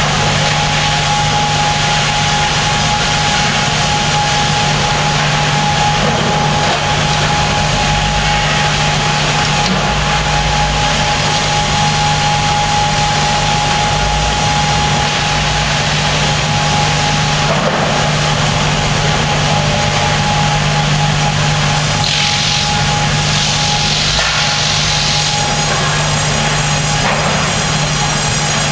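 Sawmill machinery running: a MEM log carriage with independent headblocks working at the headrig saw, giving a constant low hum and a steady high whine, with louder rushing noise for a few seconds late on.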